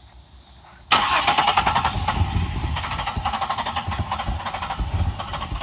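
1999 Pontiac Grand Prix GT's 3.8-litre V6 cranking on the starter, starting abruptly about a second in with a fast, even chugging that carries on. The engine wants to fire but won't start.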